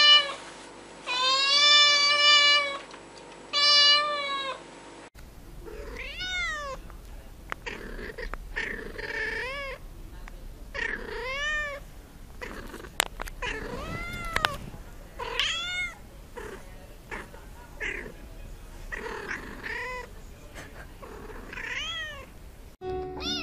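Cats meowing. First a black-and-white kitten gives loud, drawn-out meows. After a cut, a cat held close to the microphone gives a string of shorter meows that rise and fall in pitch, about one every second or two.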